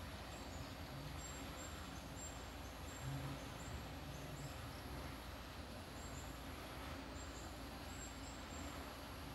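Faint outdoor ambience: a steady high-pitched whine with short high chirps scattered throughout, over a low hum.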